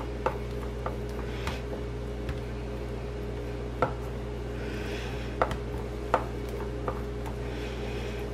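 Hands pressing and patting shredded kunafa dough down into a metal pan, with soft rustling of the strands and scattered light taps against the pan. A steady low hum runs underneath.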